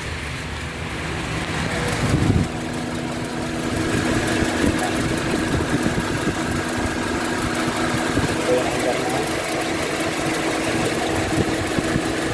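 Honda CR-V engine idling roughly with an uneven shake, with a brief loud low thump about two seconds in. The misfire comes from the No. 2 cylinder, whose ignition coil circuit has failed (code P0352).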